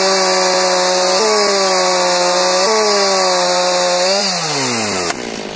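Stihl MS 290 gas chainsaw, a 56.5 cc two-stroke with its stock muffler, cutting through a log at full throttle. Its engine note sags under load and picks back up twice. About four seconds in, the cut finishes and the revs fall away sharply.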